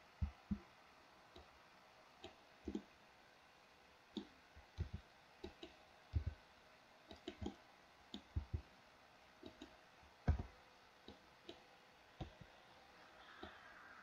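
Computer mouse clicks and keyboard key presses while working in 3D software: irregular single clicks, sometimes in quick pairs, with a few heavier thuds among them.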